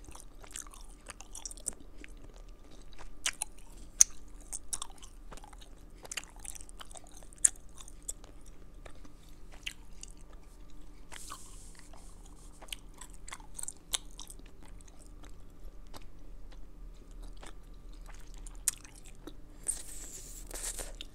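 Close-up wet chewing of a wad of sugar-free Extra Classic Bubble gum: irregular clicks and smacks of the gum in the mouth. A short hiss of air comes about eleven seconds in and a louder one near the end, as the gum is pushed to the lips.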